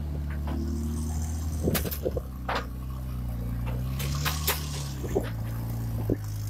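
Bofors field howitzer's auxiliary engine running steadily, its pitch rising and falling briefly around the middle, with sharp metallic clanks and clicks from the gun scattered through.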